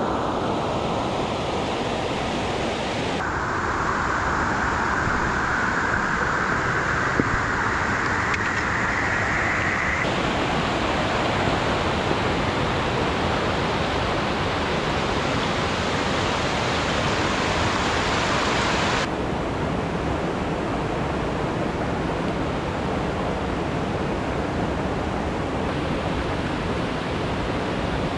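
Rushing water of a mountain stream, a loud steady hiss whose tone shifts abruptly a few times.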